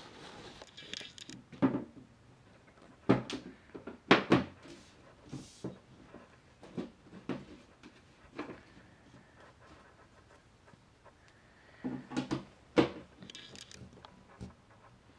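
Irregular sharp knocks and clicks of plywood furniture panels being handled and a screwdriver working their metal connector fittings, loudest about four seconds in and again near the end.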